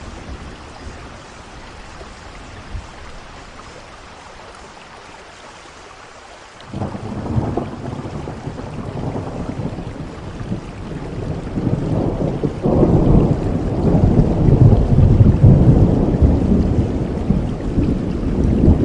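Steady rain, then thunder breaks in suddenly about seven seconds in and builds into a long low rumble that is loudest near the end.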